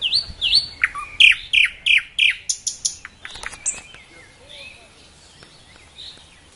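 Nightingale singing: a phrase of loud, repeated down-slurred whistles, about three a second, then a fast run of sharp clicking notes that ends about four seconds in. Fainter bird calls follow.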